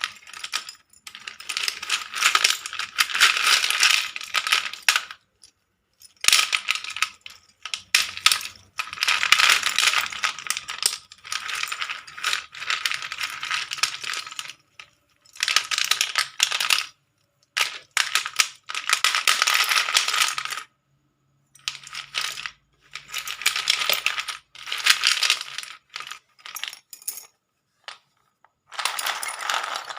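Slate pencils clinking and clattering against one another as a heap of them is handled, in bursts of a few seconds broken by short silences.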